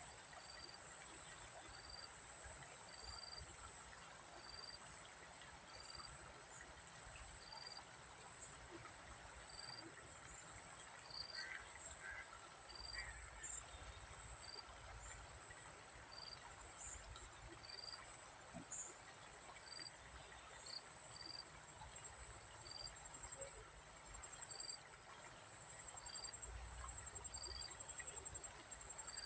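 Insects, crickets among them, keep up a steady high trill, with a short high chirp repeating about once a second. A low rumble swells now and then underneath.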